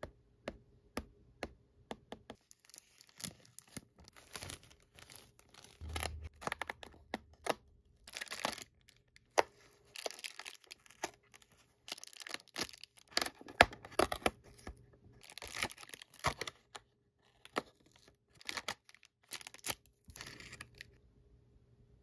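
Cardboard door of a Disney Doorables countdown box being torn open and a foil wrapper crinkled and pulled open, in many short irregular bursts. Light taps on the box come in the first couple of seconds before the tearing starts.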